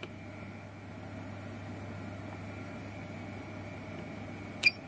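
Steady whirring hum of bench test equipment, typical of the cooling fans in electronic loads. Near the end, one short beep as a key on the DC electronic load's keypad is pressed.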